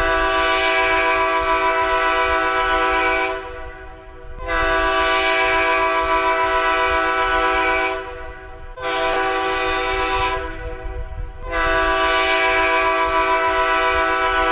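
Train air horn giving three long blasts of about three and a half seconds each, with a low rumble of the train running underneath between and during the blasts.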